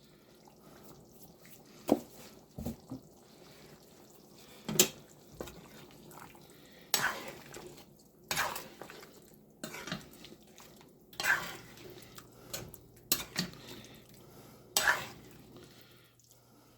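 A utensil stirring chicken curry in a metal pot, knocking and scraping against the pot about ten times at irregular intervals.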